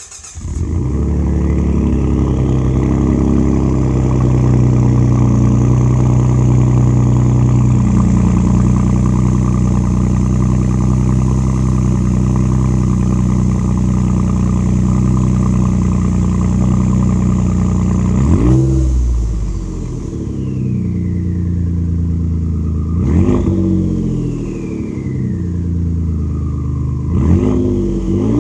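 Ford 3.5 L EcoBoost twin-turbo V6 breathing through a 4-inch straight-pipe exhaust, with no muffler or resonator. It fires up and idles steadily, loud and deep. Near the end the throttle is blipped three times, and after each blip the turbos whistle as they spool down.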